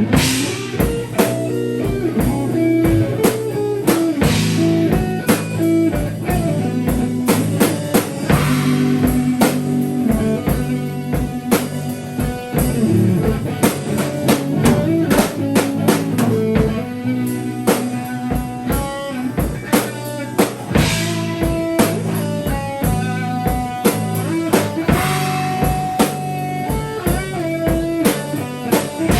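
Live improvised band music, with guitar and a drum kit keeping a steady beat and a crash cymbal every few seconds.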